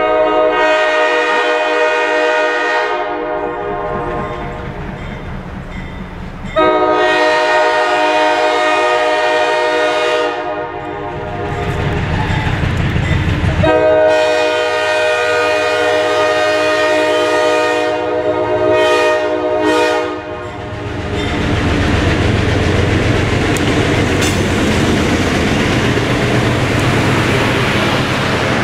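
Diesel freight locomotive, the lead GP9, sounding its air horn in three long blasts as it approaches, with the engine rumbling in the gaps. In the last third the locomotive passes close by and the sound becomes a steady rumble of engine and wheels on rail as covered hopper cars roll past.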